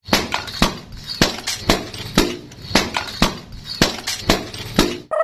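A run of sharp pops or bangs at an even pace of about two a second, with a faint ringing tone between them.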